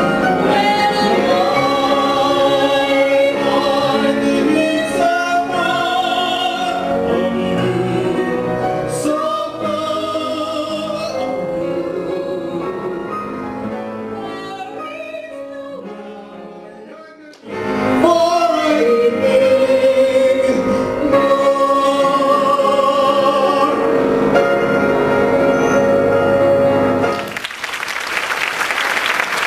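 Show-tune singing in operatic style with vibrato, several voices over an orchestra. The music thins out and nearly stops about two-thirds of the way through, then comes back loud, and applause breaks out near the end.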